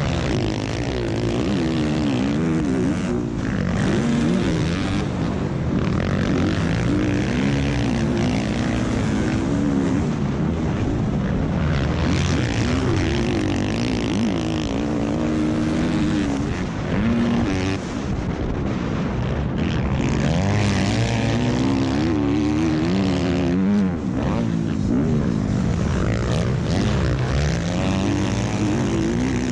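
Motocross dirt bike engine being raced, revving hard and falling back again and again, its pitch climbing and dropping every second or two as the rider works the throttle and gears.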